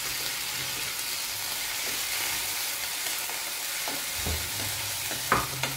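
Garlic, onion and chili paste sizzling in hot oil in a metal pan, a steady hiss, with a few sharp clinks of the metal ladle against the pan near the end.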